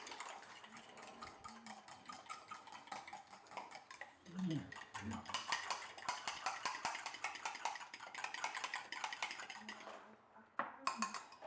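Eggs and egg whites being beaten in a bowl, the utensil clicking rapidly and steadily against the bowl. It stops about ten seconds in, followed by a few knocks of kitchenware.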